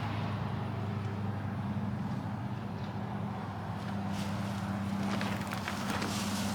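Footsteps over a steady low hum, with irregular short scuffs and clicks that come more often in the second half.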